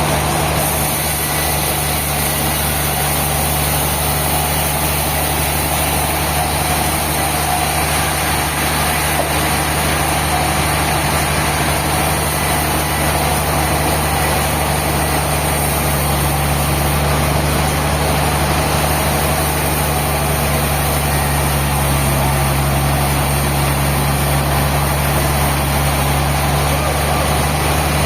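Sawmill machinery running steadily: a constant low engine hum under an even, wide noise, with no breaks or sudden changes.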